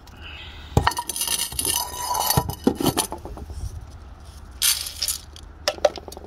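Dry dog kibble rattling in a plastic cup and pouring into a frying pan, with clinks and scrapes of the pan on concrete; a short rush of pellets near the end.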